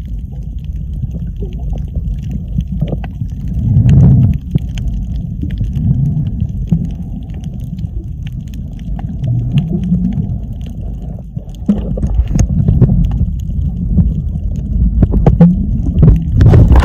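Underwater sound picked up by a camera held below the surface while snorkelling: a muffled low rumble of moving water with scattered faint clicks, swelling louder about four seconds in and again near the end.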